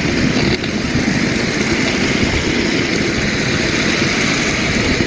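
Steady rushing noise of skate wheels rolling fast down a wet paved slope.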